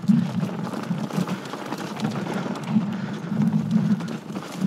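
Mountain bike descending a dirt singletrack trail: tyres rumbling over dirt and roots, with scattered clicks and rattles from the bike.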